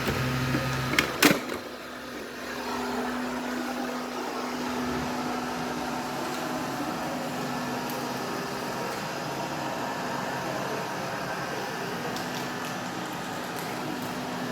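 Robot vacuum cleaner running with its filter taken out: a steady motor whir with a constant hum. A couple of sharp clicks about a second in, as a deeper hum drops away.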